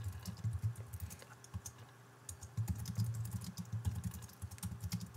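Typing on a computer keyboard: a quick, uneven run of key clicks, with a brief pause about two seconds in.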